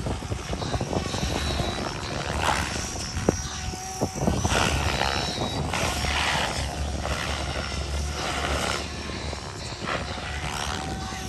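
Tron 7.0 electric RC helicopter flying, its rotor noise rising and falling in repeated surges as it manoeuvres.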